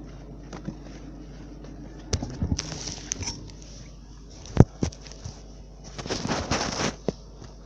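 Handling noise from the recording device: scattered clicks, a sharp knock about halfway through and a short rubbing crackle near the end, over a low steady hum.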